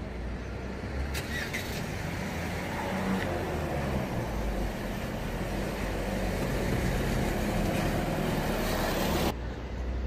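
Street traffic noise with a motor vehicle's engine hum, growing louder as it passes close, then cutting off suddenly about nine seconds in.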